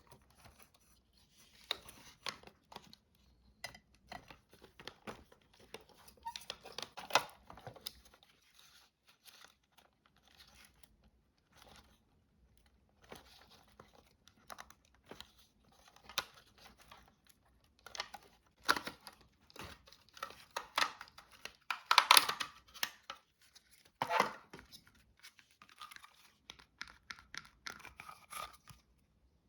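Hands working on a Dyson V6 cleaner head: irregular rustling, scraping and tearing noises with small plastic clicks, in uneven bursts that are loudest about two-thirds of the way through.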